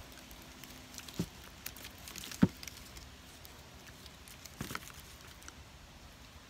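Handling of a leafy bunch of marian plums: leaves rustle and a fruit is pulled off its stem. There are a few sharp clicks, the loudest about two and a half seconds in.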